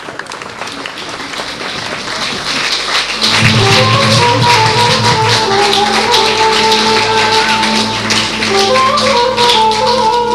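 Audience applause trailing off, then music starts about three seconds in: a held low drone under a melody, with many sharp taps running through it.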